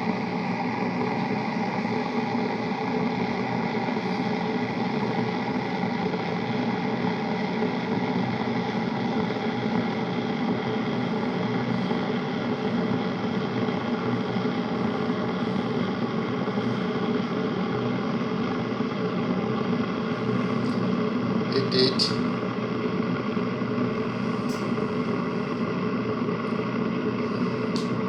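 Deerma DR035 electric kettle heating water at about 85 to 90 °C, a steady rushing rumble as the water nears the boil. A brief click about three-quarters of the way through.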